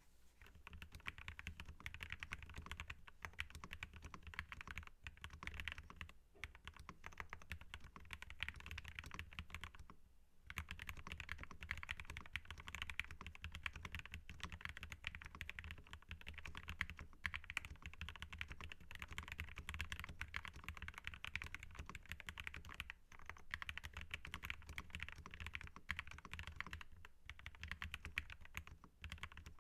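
Fast continuous typing on a Keychron K2 mechanical keyboard with lubed Gateron Red linear switches, a POM plate and foam-dampened case, the keystrokes a dense run of clicks broken by brief pauses, the longest about ten seconds in.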